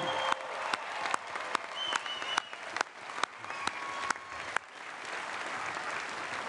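Audience applauding, with sharp individual claps and a few high cheers. The sharp claps die away about four and a half seconds in, leaving a softer, steady patter.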